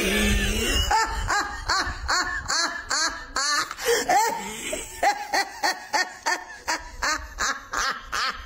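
A woman laughing loudly and without a break, a long run of quick 'ha-ha' bursts at about three or four a second. The on-screen caption labels it as the devil laughing.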